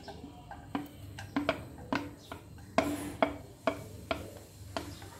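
Wooden spatula knocking and scraping on a stainless steel plate, about a dozen sharp taps at two to three a second, each with a short metallic ring, as chopped ingredients are pushed off the plate into a frying pan.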